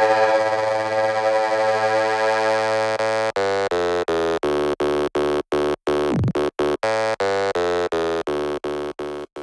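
Background music: a held electronic chord that breaks, about three seconds in, into a rapid chopped stutter, with a quick swoop down and back up in pitch near the middle. The music drops out right at the end.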